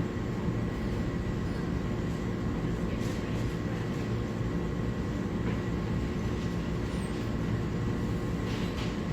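Steady machinery hum with a few faint constant tones, the even running noise of industrial equipment such as a fan or blower.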